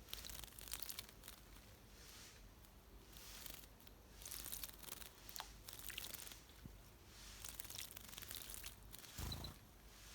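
A wild bird splashing and flapping in a shallow bird bath, in repeated short bursts of spray and wing-beats.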